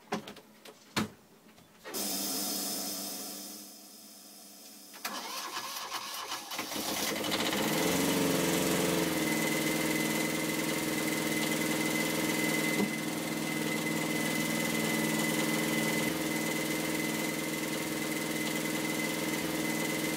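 Universal 5411 small two-cylinder marine diesel cranked on the starter, then catching and running up within a few seconds and settling into a steady idle, with a thin high steady tone joining about ten seconds in. The engine is starting on fuel fed by a manual pump hooked straight to the fuel lines, which bypasses an engine-driven fuel pump that would not prime it.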